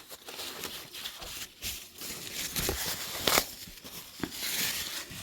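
Toilet paper being torn and crumpled by hand, a series of short rustling bursts with the loudest a little past the middle.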